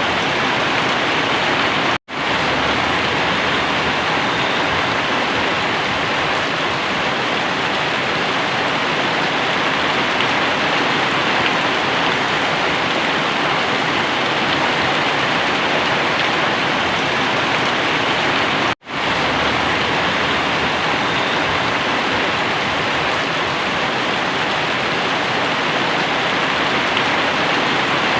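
Very heavy rain pouring steadily, a dense even hiss. It cuts out for a split second twice.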